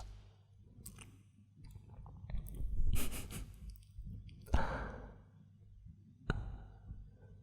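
Close-miked breathing: a man's slow sigh about two-thirds of the way through, with soft rustling of bedding around it.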